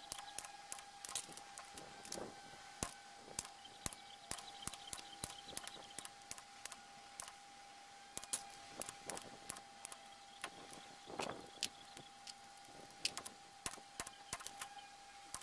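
Hand-lever sheet-metal punch snapping through 1.2 mm mild steel, a quick, irregular run of sharp metallic clicks, sped up. A steady high hum runs underneath.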